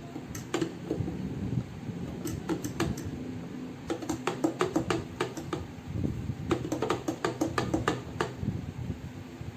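A metal fork stirring curry mix powder into water in a plastic measuring jug, its tines clicking quickly against the jug's sides and bottom in four short runs.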